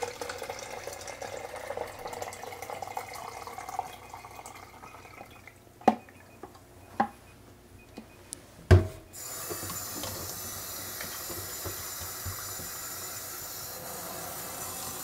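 Bleach-fix solution pouring out of a plastic film developing tank into a jug, tailing off after about four seconds. A few light clicks and one louder knock as the tank is handled and set down in the sink, then tap water running steadily through a hose into the tank for the film wash.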